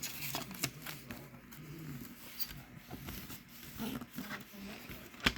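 Scattered light clicks and soft rustling from handling a plastic CD case, with one sharper click near the end.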